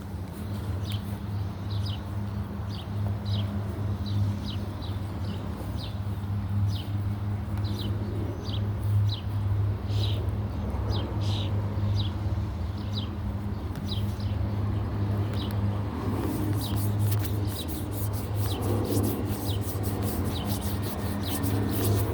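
A bird calling over and over in short falling chirps, about one or two a second, over a steady low mechanical hum. Rapid high clicking joins in for the last several seconds.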